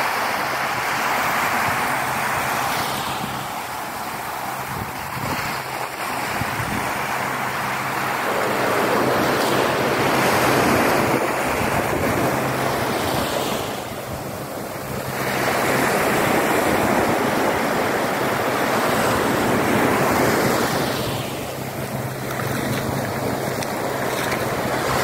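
Small sea waves washing onto a sandy shore and running up the beach in foam, the surf swelling and easing every few seconds.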